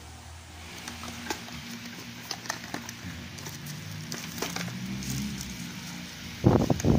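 Small cardboard box and plastic packaging being handled: scattered light crinkles, crackles and clicks as the bagged contents are rummaged through. Near the end a much louder burst of rubbing and knocking close to the microphone.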